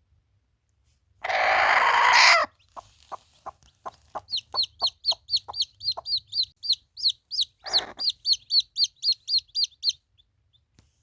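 Chickens calling: a loud harsh squawk about a second in, then a run of short clucks, and from about four seconds in a rapid string of high peeps, about four a second, with another brief squawk partway through.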